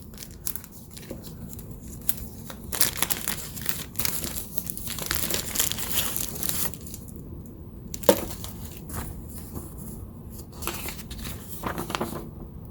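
Packaging and paper being handled: irregular crinkling and rustling, heaviest in the middle stretch, with scattered small clicks and a sharper click about 8 seconds in.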